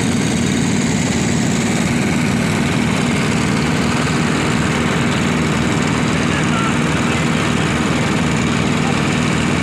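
Petrol walk-behind lawn mower engines running steadily and loudly, with no change in speed.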